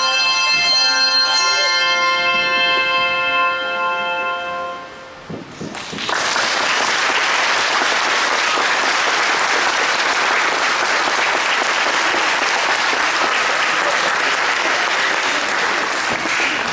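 Handbell choir's last chord ringing and dying away over about five seconds, then an audience applauding.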